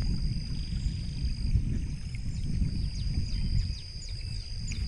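Outdoor ambience beside a fast-flowing flooded river: a low, uneven rumble of wind and rushing water on the microphone, with a steady high-pitched insect drone and several short falling chirps in the second half.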